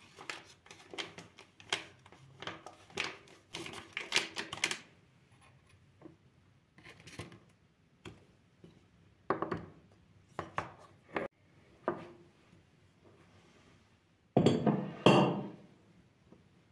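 Dishes and utensils clinking and knocking, as in kitchen work. There is a quick run of clinks for about the first five seconds, then scattered single knocks, and two louder clatters near the end.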